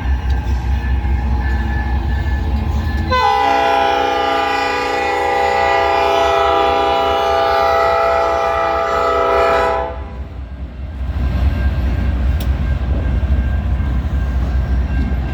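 CN freight locomotive horn sounding one long, steady chord-like blast of about six or seven seconds, starting about three seconds in and cutting off sharply, over a steady low rumble before and after it.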